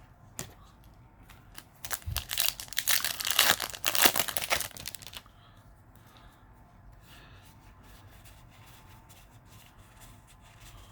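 Foil wrapper of a Yu-Gi-Oh! booster pack being torn open and crinkled for about three seconds, starting about two seconds in, followed by a few faint ticks.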